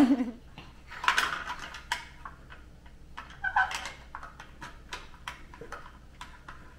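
Scattered light clicks and knocks of plastic toy vehicles handled on a hard floor by small children, with a brief high child's babble about three and a half seconds in.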